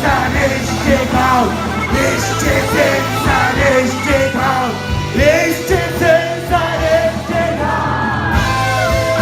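Rock band playing with a singer's voice over a steady bass line and drum beat.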